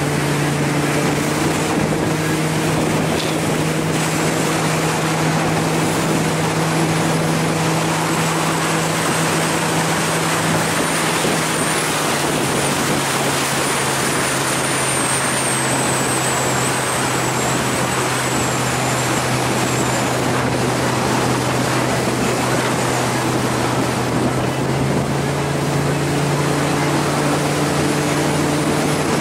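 Volvo Penta 4.3 GXi V6 sterndrive engine running the boat under way, over a steady rush of water and wind. The engine note drops a little about twelve seconds in and rises again near the end as the throttle eases and opens. A thin high whine comes and goes in the middle.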